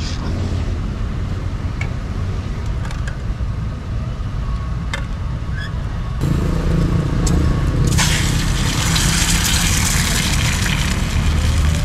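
Cooking oil heating in a pan on a portable butane gas stove, with a few faint pops, then an egg goes into the smoking-hot oil and sizzles from about eight seconds in, much louder than before. A steady low rumble of traffic runs underneath.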